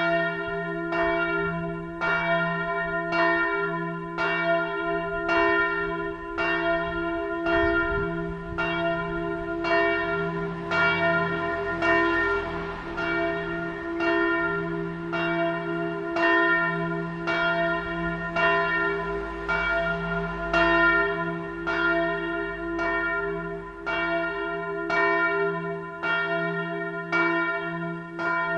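Bell no. 1 of Ebrach's church of St. Mariä Himmelfahrt, a large swinging church bell, ringing alone. Its clapper strikes at an even pace, each stroke ringing on into the next over a steady low hum.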